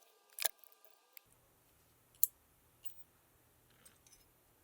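A few sharp, separate clicks of small metal parts and tools being handled on a diesel injection pump, the loudest about half a second in and another a little after two seconds.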